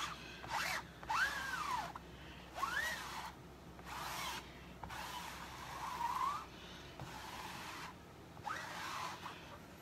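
4-inch squeegee dragged repeatedly across a silkscreen transfer, spreading thick chalk paste: about six scraping strokes, several with a squeak that rises and falls in pitch.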